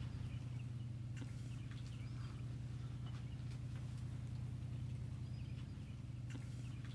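Quiet background: a steady low hum, with faint short bird chirps now and then and a few soft clicks.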